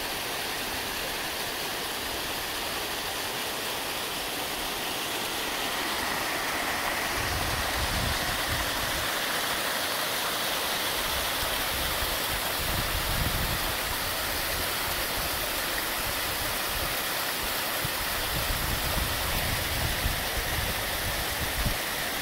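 Small woodland stream cascading over mossy rocks: a steady rushing splash that grows a little louder about six seconds in, with irregular low rumbles from then on.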